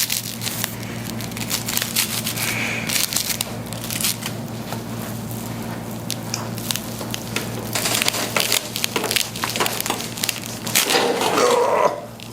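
A run of sharp crackles and crunches during a chiropractic spinal adjustment: the spine cracking, which the patient feels as decompression from his lower back to his neck. A steady low hum lies underneath.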